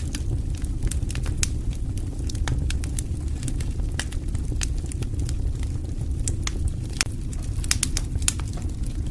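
Campfire of burning wood crackling: a steady low flame noise with frequent, irregular sharp pops and snaps.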